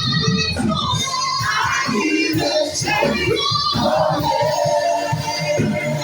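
Worship song sung by voices over musical accompaniment, with long held notes.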